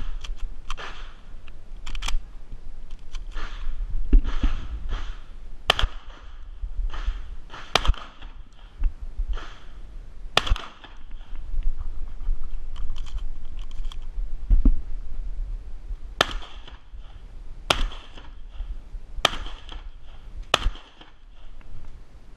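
Semi-automatic Winchester SX4 shotgun firing single shots, about eight spaced irregularly a second or more apart, with longer pauses between some of them. Scuffling and handling noise fills the gaps.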